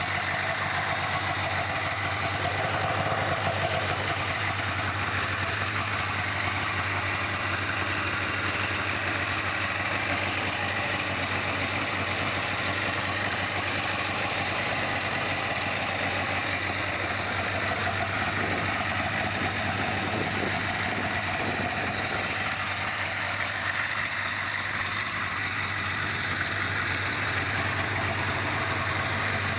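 Polaris Indy snowmobile engine idling steadily on its first start of the season.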